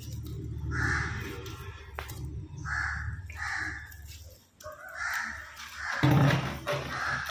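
Crows cawing: harsh, separate calls about every one to two seconds, over a low rumble that stops about four seconds in. A louder sound comes about six seconds in.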